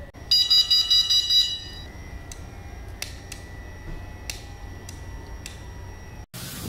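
Shrill electronic horn or beeper of a bicycle handlebar headlight unit, sounding in quick pulses for about a second and a half, followed by several separate clicks as its buttons are pressed.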